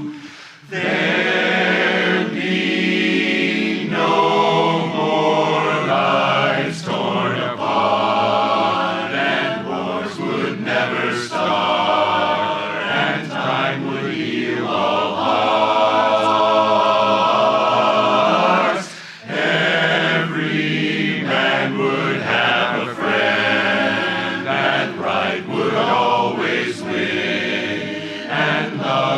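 Men's barbershop chorus singing a cappella in close multi-part harmony. There are brief breaks between phrases shortly after the start and about 19 seconds in.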